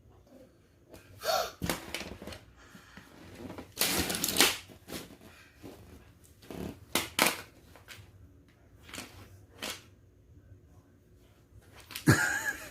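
Plastic magnet tiles clicking and clattering as pieces are picked through, in a string of separate short knocks and rustles with quiet gaps between them.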